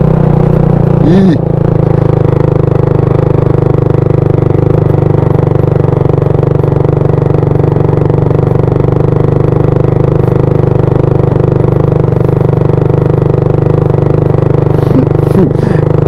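Motor scooter engine running at a steady speed while riding up a rough concrete and gravel track.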